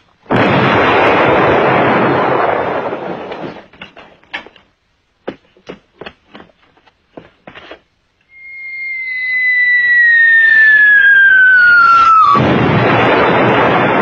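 A super-heavy siege gun fires: a sudden loud blast that dies away over about three seconds. Some seconds later the incoming shell gives a long falling whistle that ends in a loud explosion.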